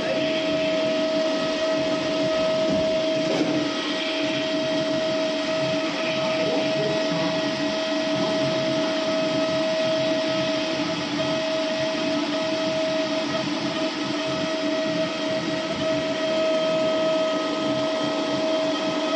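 DPS X5M 5-axis dental CNC milling machine running, its spindle giving a steady high whine over the hiss of cutting.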